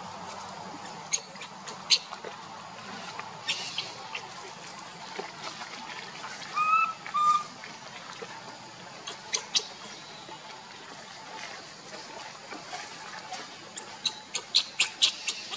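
Dry leaf litter crackling in scattered sharp snaps, with a quick run of crackles near the end as a baby macaque paws at the leaves. Two short, high-pitched calls come about seven seconds in, against a steady background hiss.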